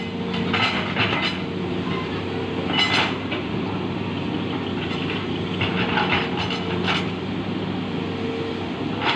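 Hitachi ZX200 hydraulic excavator's diesel engine running at a steady pitch, with short sharp clanks in clusters: a few in the first second and a half, one near three seconds, and several between six and seven seconds.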